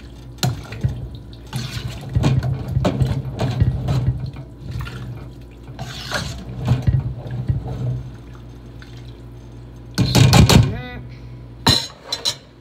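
A spoon stirring vegetable soup in a speckled enamel stockpot. The liquid sloshes, and the spoon scrapes and knocks against the pot at irregular moments.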